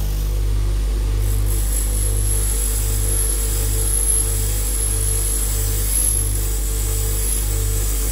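Electric bench buffer running, its motor giving a steady low hum that pulses roughly once a second, while a small metal part is held against the spinning cloth buffing wheel. A faint high whine joins about a second in and carries on.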